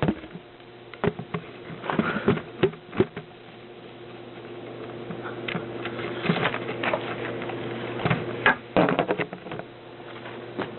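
Irregular bumps, taps and rustles of a camera being handled and set in position, over a faint steady hum.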